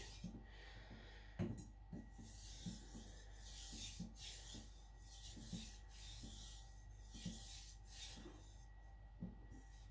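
A steel nakiri blade being stroked back and forth on a fine-grit Naniwa Professional 5000 water stone, alternating edge-leading and edge-trailing strokes to lay on a small micro bevel. It makes a soft, repeated scraping hiss, about one to two strokes a second, each with a faint tap as the blade meets the stone.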